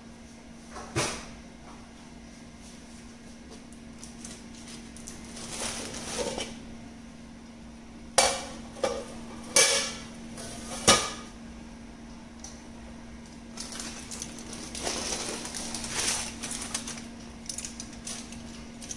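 An aluminium plate lid is lifted off a metal cooking pot, with sharp metal clanks, a run of them about halfway through. Aluminium foil then crinkles as it is peeled off the pot. A faint steady hum sits under it all.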